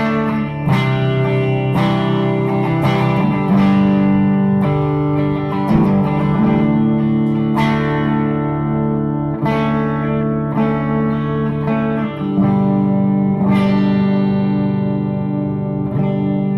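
Les Paul electric guitar on its bridge pickup through a Bad Cat Bobcat 5R combo amp with the gain almost full and the master just below noon, playing a lick of struck chords and notes, each left to ring with natural amp overdrive and a little bite.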